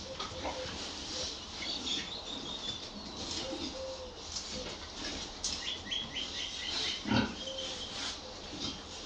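A group of young pigs grunting and snuffling as they root and nose at the ground, with one louder grunt about seven seconds in. Short high chirps, like small birds, sound in the background.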